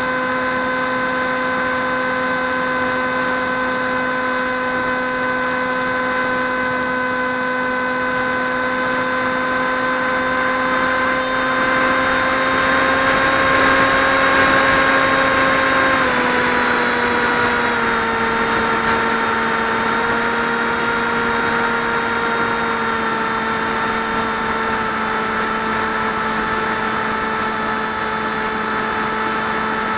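Electric motor of a Swift 2 FPV flying wing, heard through the onboard camera, running with a steady whine. A rush of air noise swells in the middle, and the whine's pitch steps down twice, as the throttle is eased.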